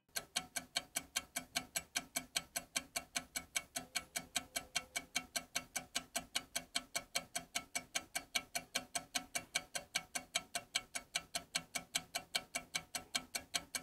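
Ticking clock sound effect running under a countdown: rapid, even, dry ticks, about five a second, keeping a steady pace throughout.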